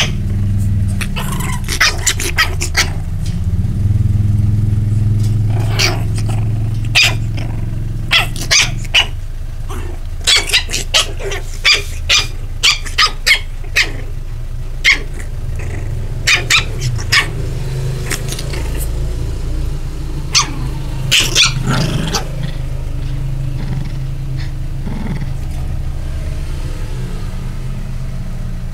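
Shih Tzu puppies giving many short, sharp yips as they play-fight in a wire crate, scattered through the first twenty-odd seconds, over a steady low hum.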